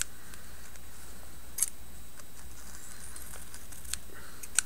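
Small scissors snipping through cement-stiffened tea-bag paper around a feather, a few short separate snips, the clearest about one and a half seconds in and near the end. A steady low hum runs underneath.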